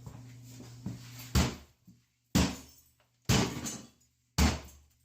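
Four heavy hammer blows striking a cast iron bathtub to break it apart, about a second apart, each hit dying away quickly.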